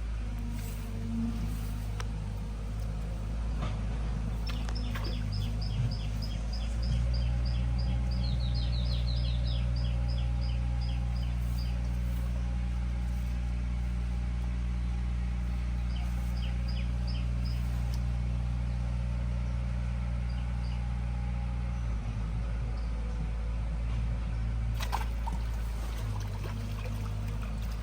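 A steady, low motor-like hum that grows louder for a stretch in the middle. Over it, a bird gives rapid series of short, evenly repeated high chirps, twice.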